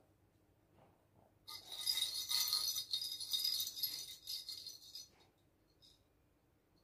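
Plastic cat toy balls with bells inside jingling and rattling for about three and a half seconds, starting a second and a half in, with one faint jingle again near the end.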